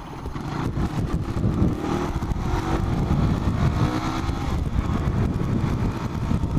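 Motorcycle engine pulling away under acceleration, its pitch climbing steadily from about two seconds in until past halfway, over a constant low rumble.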